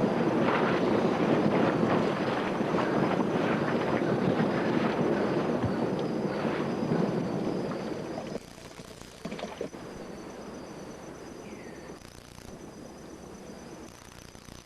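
Volcanic eruption: a loud, dense rumbling noise with sharp crackles. About eight seconds in it cuts off abruptly to a much quieter outdoor background with a brief falling call.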